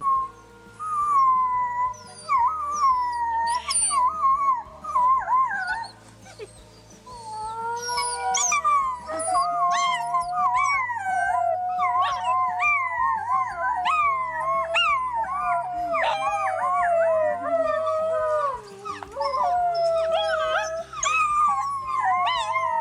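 A wolf pack howling in chorus: several overlapping howls gliding up and down, broken by short yips, with one or two voices at first and the chorus thickening from about eight seconds in.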